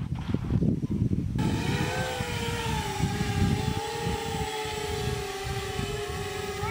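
RC model airplane's electric motor and propeller whining steadily in flight, the pitch wavering slightly, starting about a second and a half in after a low rumble.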